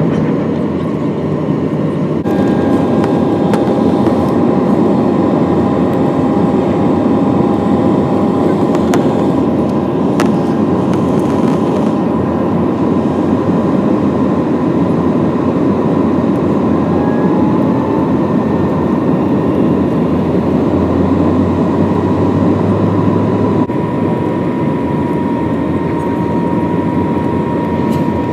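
Jet airliner cabin noise heard at a window seat over the wing: the steady rush of the turbofan engines and airflow, with a faint steady whine on top. The sound jumps abruptly a few times, about two seconds in and again later, as the flight moves from climb to landing.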